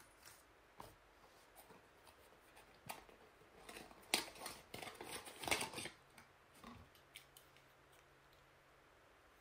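Small clear plastic bag of mounting screws and wall anchors crinkling and clicking as it is handled and set down on a wooden table, busiest and loudest around the middle, followed by a few light handling clicks.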